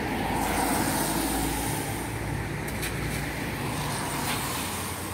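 Cars passing close by on a wet road: engine hum and tyre hiss swell within the first second and fade after about four seconds, with a few faint clicks.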